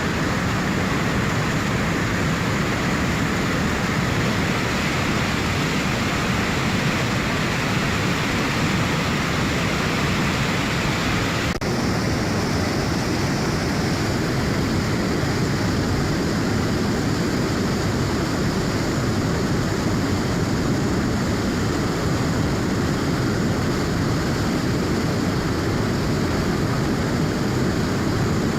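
River running in high flow: a steady rush of turbulent water. The upper hiss shifts slightly about twelve seconds in.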